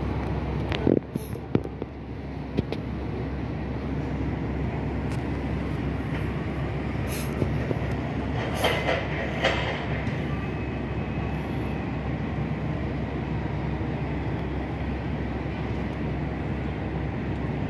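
Steady low mechanical rumble of a cruise ship's machinery while it docks, with a few brief knocks about a second in and a few more clicks around eight to nine seconds.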